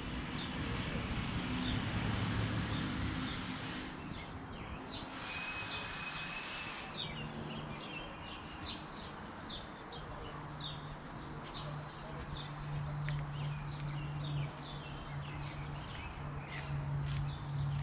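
Many small birds chirping in quick, short, falling calls, growing busier about a third of the way in, over a steady low drone.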